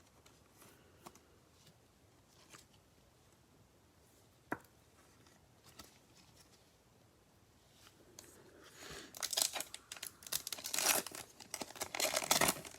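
A few faint taps, then from about eight seconds in a trading card pack wrapper being torn open and crinkled.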